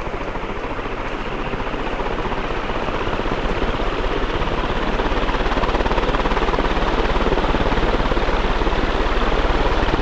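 Luminous Audie 1200mm smart ceiling fan running at its top speed: a steady rush of air with a fast, even flutter from the blades, slowly growing louder.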